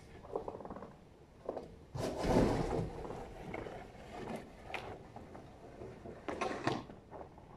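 Snow shovel scraping over paving stones in several short strokes; the loudest and longest comes about two seconds in.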